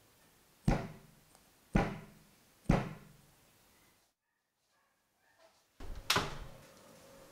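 A round metal cake pan of chocolate sponge batter is rapped down three times on a towel-covered counter, about a second apart, giving dull thuds. The rapping knocks trapped air bubbles out of the batter. After a short break comes one more thud.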